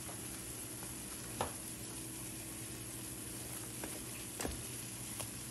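Battered plantain slices sizzling in shallow oil in a small frying pan: a steady frying hiss, with a few light clicks about a second and a half in and again near the end.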